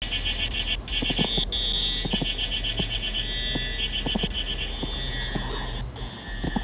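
A fast-pulsing chorus of calling animals, about ten pulses a second, over a low steady hum, with scattered short knocks.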